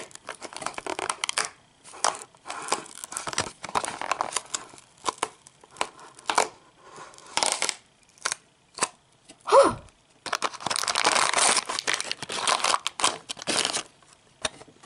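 Peeling the lid off a Littlest Pet Shop Hungry Pets can and pulling out the purple plastic wrappers inside: irregular bursts of tearing and plastic crinkling. There is a short falling-pitch squeak about ten seconds in.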